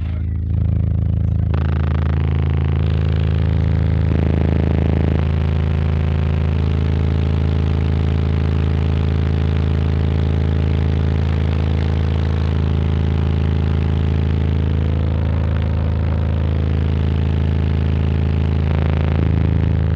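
High-power car audio system playing loud, sustained deep bass notes, the lower tones shifting every few seconds early on.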